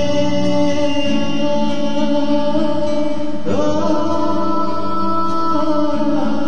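Guitar music with long held notes, sliding up into a new chord about three and a half seconds in.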